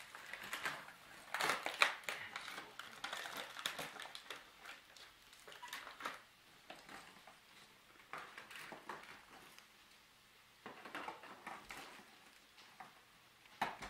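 Cardboard box and plastic packaging of a toy being handled and pulled apart: irregular rustling, crinkling and clicking, busiest in the first few seconds, then in scattered bursts.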